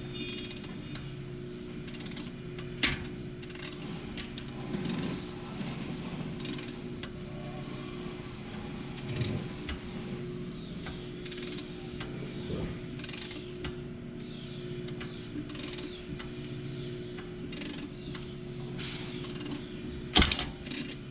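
Polaris Ranger 570 engine being turned over without firing: a steady mechanical hum with irregular sharp clacks and clicks every second or two, in a motor whose timing chain is not keeping tension.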